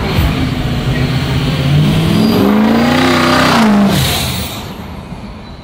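A vehicle accelerating past: its engine note climbs for a couple of seconds, drops sharply as it goes by about four seconds in, and then fades away.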